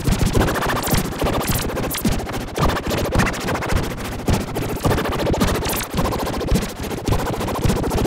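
Fan-made emergency alert alarm sound: a harsh, distorted, crackling noise pulsing rapidly over a deep rumble, loud and unbroken, with no clear steady alert tone.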